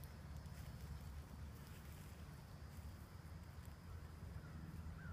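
Faint outdoor background with a steady low hum.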